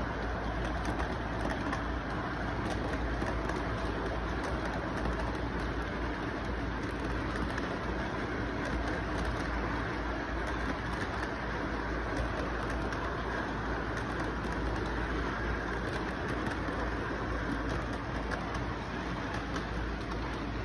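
Model train rolling past on its track: a steady rumble with a low hum and many quick clicks as the wheels run over the rails.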